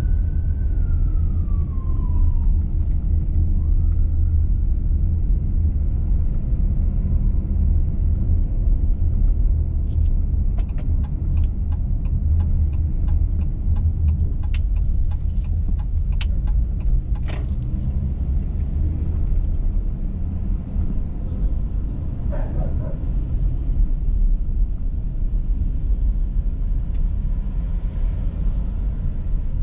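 Steady low rumble of a car driving through town streets. A siren wail falls in pitch and fades over the first couple of seconds. A run of light sharp ticks comes about a third of the way in and lasts several seconds.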